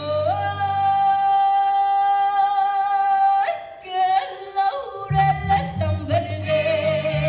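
Mariachi music: a singer slides up into one long held high note of about three seconds while the band's low accompaniment drops away. A few shorter sung notes follow, and the band comes back in about five seconds in.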